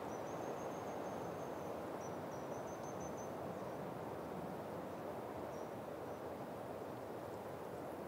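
Wind blowing through Mediterranean stone pines, a steady even rushing hiss. Over it, a faint high trill sounds twice in the first three seconds, then two short high notes about midway.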